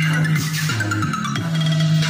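Background electronic music with a heavy sustained bass line that slides in pitch, over a steady beat.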